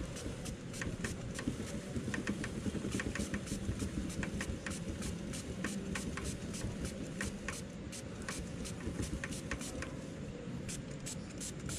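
Rapid, repeated short squirts from a hand-pump spray bottle spraying gasoline onto a motorcycle drive chain, about two to three a second, over a steady low rumble.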